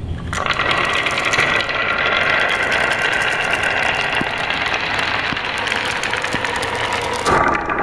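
Many plastic balls rolling and clattering down wavy grooved wooden marble-run tracks and plastic curved track pieces: a dense, continuous rattle that starts about a third of a second in as they are released. The sound shifts near the end.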